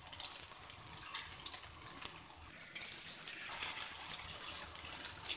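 Hot oil sizzling and crackling around egg-coated beef shami kababs shallow-frying on a tawa, with the sizzle swelling about three and a half seconds in as the kababs are turned with tongs.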